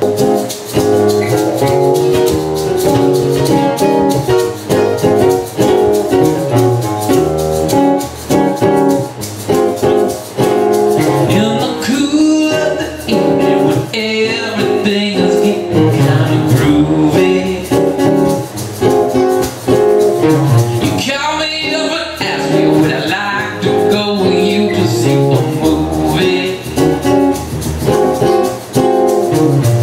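Acoustic band music: two acoustic guitars playing together, with singing over parts of it.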